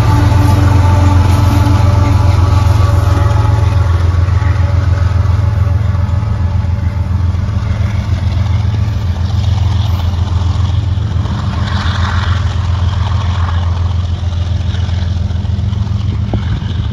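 A GE ES44AC-H diesel locomotive, the rear distributed-power unit of a freight train, running with a steady low engine drone that slowly fades as it moves away down the track.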